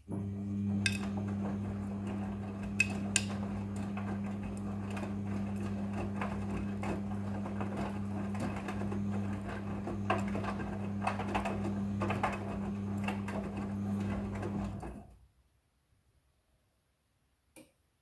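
Midea front-loading washing machine drum turning in its wash cycle: a steady motor hum under wet laundry tumbling, with frequent light clicks and knocks against the drum. The drum stops about 15 seconds in and the sound cuts off.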